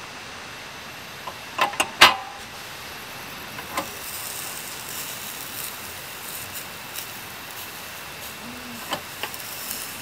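A few sharp clicks and knocks, a quick cluster about two seconds in being the loudest, with single ones later, over a steady hiss.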